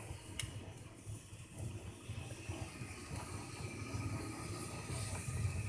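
Faint hiss and sizzle of a whole chicken roasting on a rotisserie spit over glowing coals, with a few short crackles and a low steady hum underneath.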